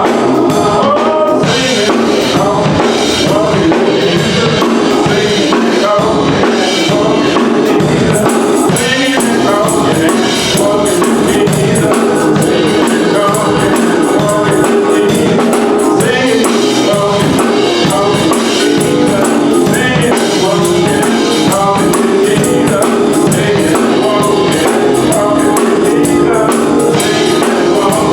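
Gospel music: a choir singing over a band with tambourine and a steady beat.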